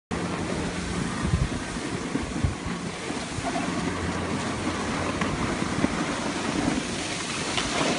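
Wind rushing over the microphone and the steady hiss of skis sliding over snow, with a few low bumps in the first few seconds.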